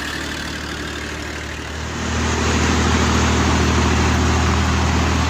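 Ural truck's engine running, then growing louder about two seconds in as it is revved under load and holding there.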